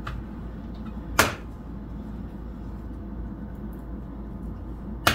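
A raw egg cracked by tapping it against a hard edge: one sharp knock about a second in, a faint click at the start and another sharp click near the end, over a steady low hum.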